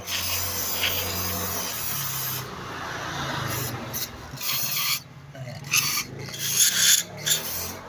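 Aerosol cleaner spray hissing into a sooty car engine intake part, flushing dirt out of its holes: one long hiss, then after a break several short bursts near the end.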